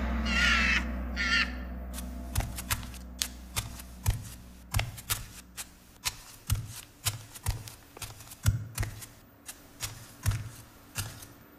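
A couple of short, harsh call-like sounds at the start, then a run of irregular sharp clicks, each with a soft low knock, about one or two a second.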